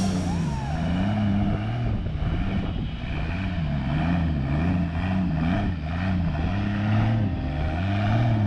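A 4x4 vehicle's engine running, its pitch rising and falling about once a second.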